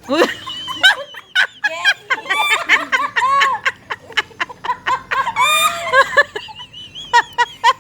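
Women laughing hard: high-pitched, cackling laughter in quick, broken runs, with gasps between.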